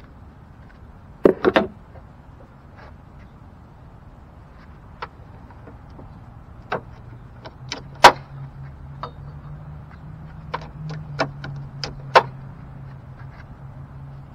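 Scattered clinks and knocks of metal hand tools (wrenches and a ratchet) being picked up and handled over an engine bay, with a sharp cluster about a second in and single loud knocks near eight and twelve seconds.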